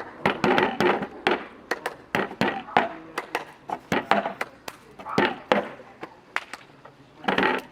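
Cup percussion by a group: cups knocked and slapped on a tabletop in a cup-rhythm game, a quick run of sharp knocks, several a second.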